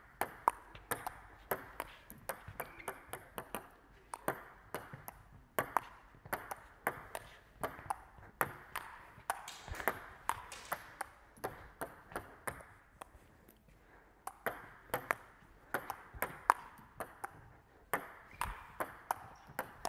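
Table tennis rally: the ball clicks back and forth off the paddles and the table, a few hits every second, with short breaks between exchanges.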